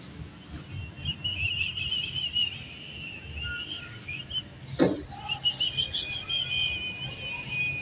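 Birds chirping and warbling on and off, high-pitched, with a single knock about five seconds in.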